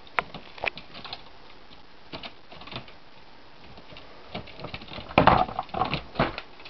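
A squirrel's claws scrabbling and clicking on a wire-mesh cage as it climbs: scattered light clicks, then a louder flurry about five seconds in.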